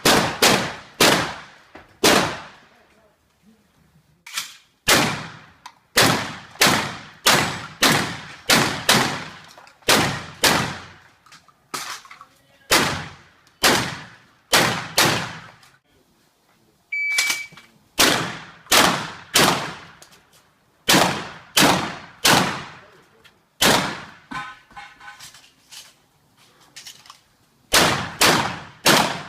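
Shotgun firing rapid strings of shots, about two a second, with short pauses between the strings.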